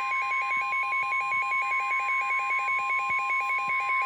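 NOAA Weather Radio warning alarm tone: a steady single tone near 1 kHz announcing a weather warning. Rapid, evenly spaced electronic beeps at other pitches, about seven or eight a second, sound over it.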